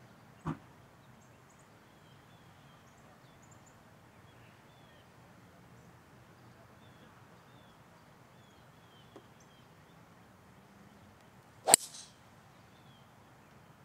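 A 3-wood striking a golf ball off the tee: one sharp crack near the end, the loudest sound. A soft thump about half a second in, and faint bird chirps throughout.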